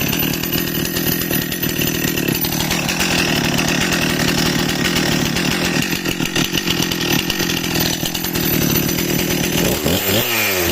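Stihl MS261 chainsaw's two-stroke engine running at a steady high speed, then near the end revved up and down in quick repeated throttle blips.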